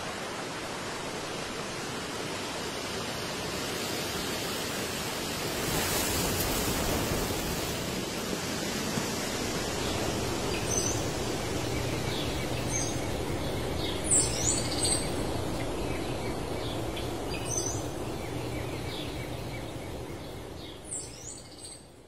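Steady outdoor ambience of rushing noise that swells about six seconds in. Short high bird chirps join from about ten seconds in, and it all fades out near the end.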